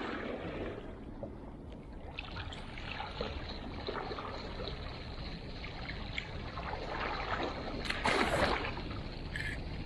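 Water washing and splashing at the shore with wind rumbling on the microphone, and a louder wash of water about eight seconds in.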